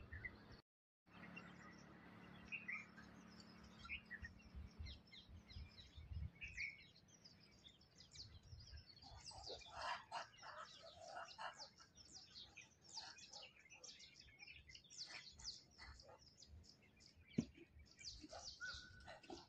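Faint chorus of small birds, many short high chirps and calls overlapping, busiest in the middle and toward the end, over a low rumble. A single sharp click comes near the end.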